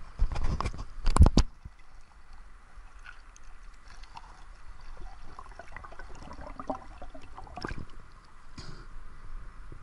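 Splashing as a snorkeler plunges into river water, loudest in the first second and a half. Then muffled underwater gurgling and small knocks, with another brief splash near the end as he comes back up.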